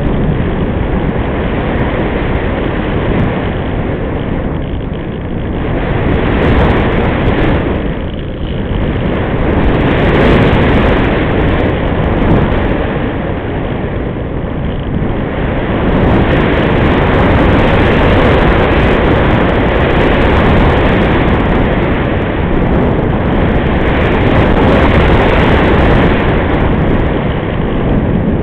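Loud rushing wind noise from airflow over the microphone of a small camera mounted on a gliding RC sailplane, rising and falling in loudness as the plane banks and changes speed.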